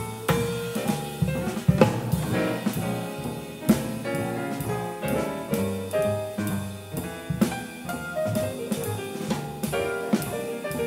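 Small jazz combo playing: a Steinway grand piano plays a stream of quick notes over a drum kit and bass.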